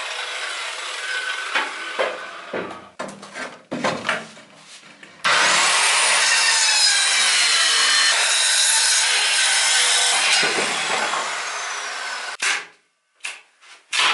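Handheld electric saw cutting through a wooden beam. The cut starts abruptly about five seconds in, runs loud and even for about seven seconds, then stops, with a few quieter knocks of wood before and after.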